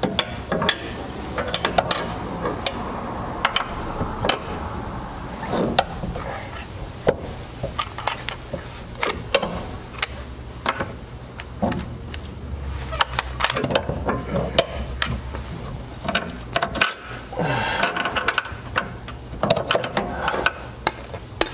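Irregular metal clinks and knocks, steady all the way through, as a cradle bushing lockout ring is worked by hand up over a Mustang's rear subframe bushing. A steady low hum runs beneath.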